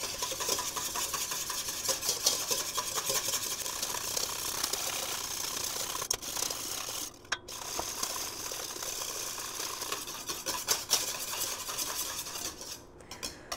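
Wire whisk beating rapidly against a stainless steel mixing bowl, a continuous fast rattling and scraping as oil is whisked into egg yolk to emulsify mayonnaise, played back sped up. It breaks off briefly about seven seconds in.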